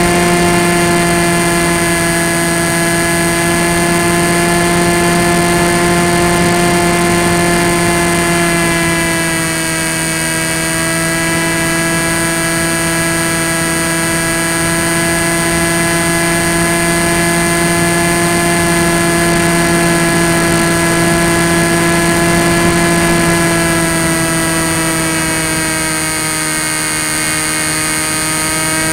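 Electric motor and propeller of a Tek Sumo foam flying wing, heard from on board: a steady whine that drops slightly in pitch about ten seconds in and again near the end.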